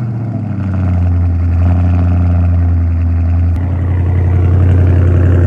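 Dodge Charger Scat Pack's 6.4-litre HEMI V8 idling through its exhaust right after a cold start, a loud, deep, steady drone. The tone shifts slightly about three and a half seconds in.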